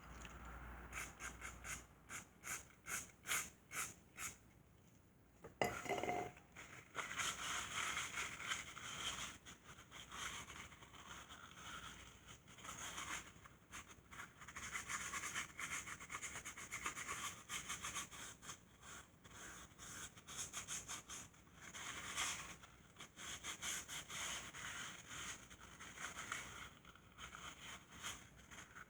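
Scrubbing and scraping from hand work on a transmission housing. About the first five seconds hold a run of short strokes, roughly two a second, and then comes steady rough rubbing and scraping.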